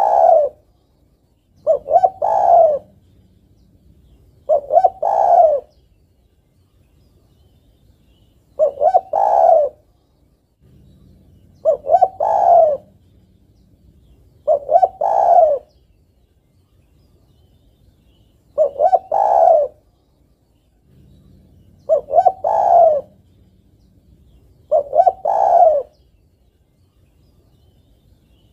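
Female spotted dove cooing to call a male: each call is a short lead-in note followed by a longer coo, repeated about every three seconds in runs of three, with a longer pause between runs.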